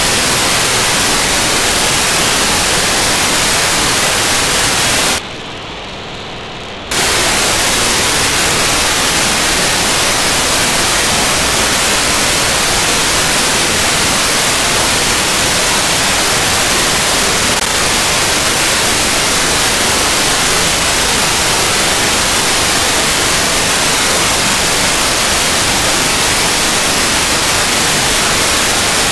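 Steady hiss of an SDR receiver's FM demodulator tuned to the ArcCube-01 cubesat downlink on 437.6 MHz. About five seconds in, the hiss drops out for nearly two seconds and turns duller as the satellite's short GMSK telemetry data burst comes through, then the hiss returns.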